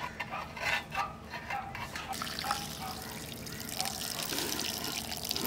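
A few short clicks and scrapes from a knife trimming a raw mutton leg in an aluminium bowl. About two seconds in, a steady stream of water starts pouring and splashing onto the meat to rinse it.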